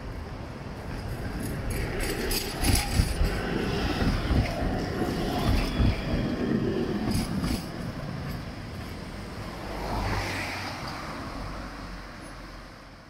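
Low-floor electric tram rolling past close by on street track: a rising rumble and rattle of steel wheels on rails, with several sharp clacks at its loudest, then dying away near the end.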